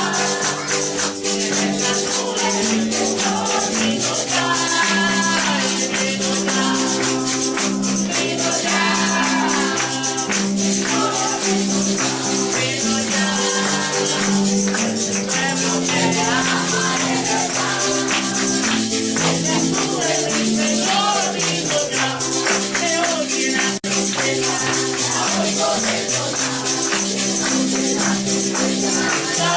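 Church worship music: sustained chords that change every second or two, a wavering melody, voices singing and tambourines shaking throughout.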